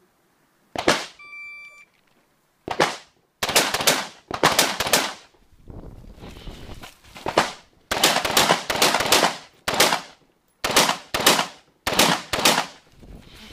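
Semi-automatic rifle shots fired in quick strings of two to four, with short pauses between strings, each crack followed by a short echo. A brief steady tone sounds just after the second shot.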